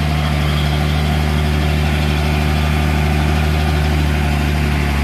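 Diesel engine of a loaded Hino dump truck pulling slowly uphill in low gear, a steady deep drone.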